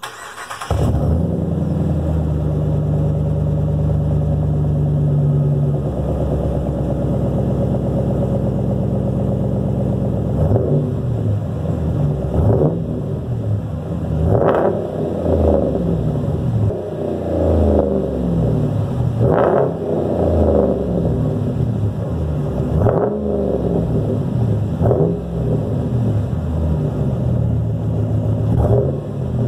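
A 2017 Ram Rebel pickup's engine running through a Carven Progressive aftermarket exhaust. It comes to life at the start with a brief flare, holds a steady idle, then from about ten seconds in is revved again and again in short blips that climb and fall back.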